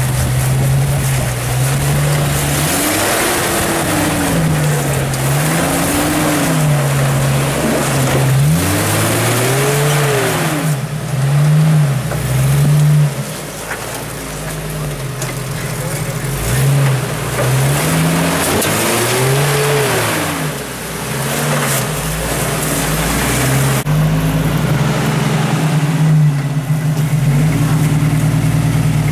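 Rock crawler buggy's engine revved in repeated throttle bursts as it climbs over boulders, the pitch rising and falling every couple of seconds and held steadier near the end.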